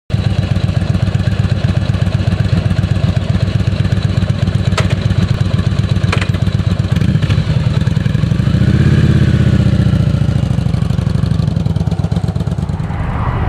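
Yamaha V-twin motorcycle engine idling steadily, with two sharp clicks a little before the middle; the engine note swells and rises past the middle as it pulls away, then eases.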